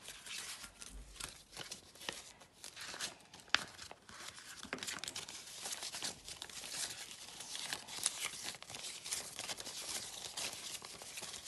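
Jamaican dollar banknotes being counted by hand: a quick, steady run of papery flicks and crinkles as each note is thumbed off the stack.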